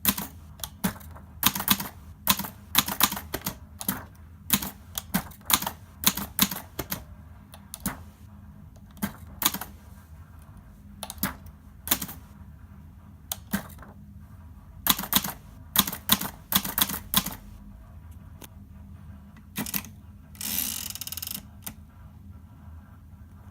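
Hermes Baby portable manual typewriter being typed on: sharp, irregular key clacks in quick runs with short pauses, and a longer rasping sound lasting about a second near the end.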